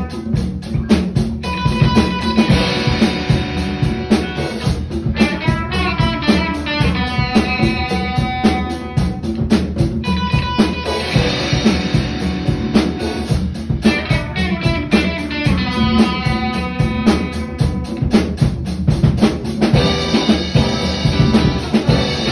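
A band playing a song: a drum kit keeps a steady, busy beat with bass drum and rim hits under guitar chords and single notes.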